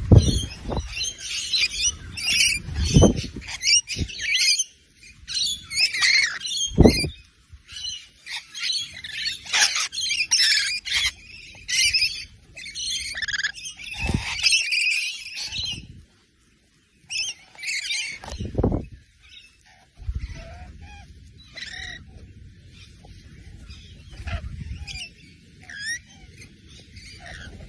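A flock of parrots chattering and squawking with busy, overlapping high calls, broken by a few low thumps. The sound drops out briefly about sixteen seconds in. After that the calls are sparser over a low steady hum.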